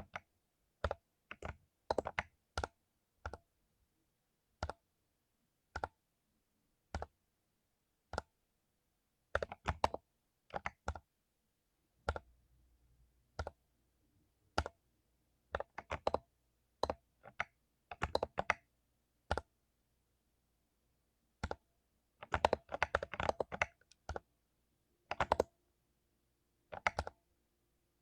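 Mechanical keyboard with lubed Cherry MX Silver linear switches being typed on: single keystrokes and short runs of clicks with irregular pauses, and a quick flurry of keys near the end.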